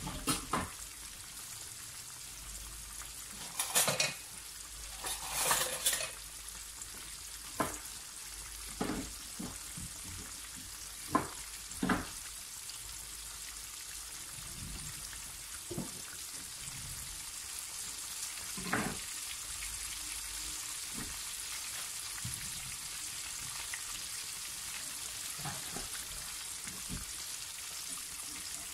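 Flour-breaded chicken pieces frying in oil in a pan: a steady sizzling hiss with scattered pops and crackles every second or few.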